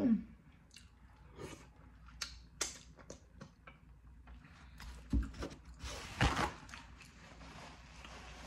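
Close-up chewing and mouth sounds of someone eating boiled blue crab, with scattered small clicks and crunches from the shell. About six seconds in there is a louder, noisier burst.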